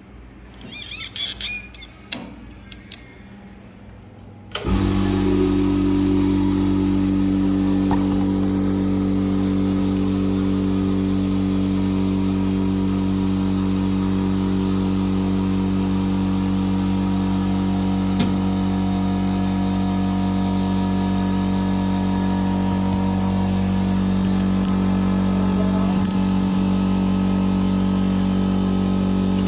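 A motor-driven machine switching on suddenly about four and a half seconds in and then running with a loud, steady hum, after a few soft clicks of handling.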